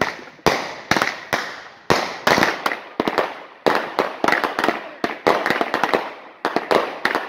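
Consumer fireworks going off: a rapid, irregular string of sharp bangs, about two or three a second, each trailing off before the next.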